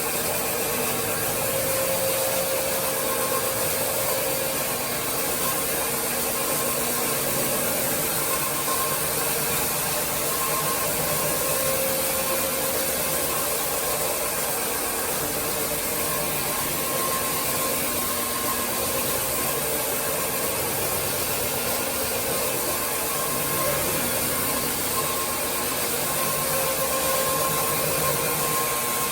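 Tile-and-grout floor-cleaning machine running steadily: a constant motor drone with a strong high hiss and a couple of steady whining tones. It cuts off abruptly at the very end.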